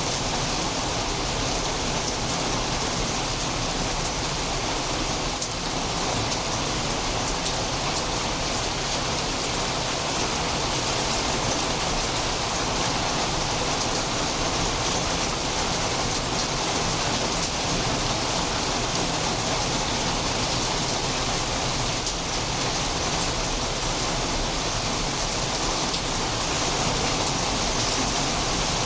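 Steady rain falling during a thunderstorm, an even wash of sound with individual drops ticking through it; no thunder.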